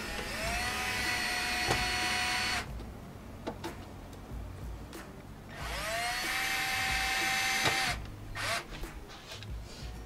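Cordless power screwdriver run twice, about two seconds each, driving screws into a door trim panel: each run spins up quickly to a steady whine and then stops sharply.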